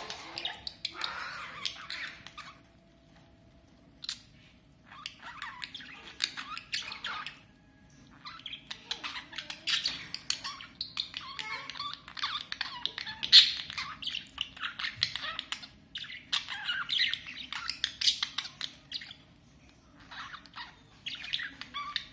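Budgerigar chattering and squawking in short, scratchy bursts mixed with sharp clicks. It falls quiet briefly a few times.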